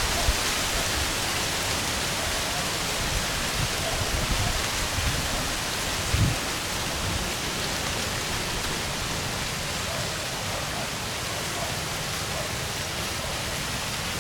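Steady hiss of rain falling, with low rumbling thumps now and then, the strongest about six seconds in.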